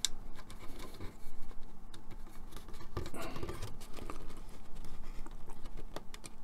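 Fingers working a thin plastic joining strip into the slotted edge of plastic model deck sections: scratchy rubbing and many small clicks of plastic on plastic.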